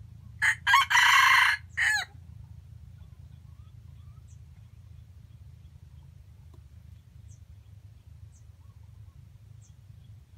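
A red junglefowl rooster crows once, a short crow about a second and a half long that starts about half a second in.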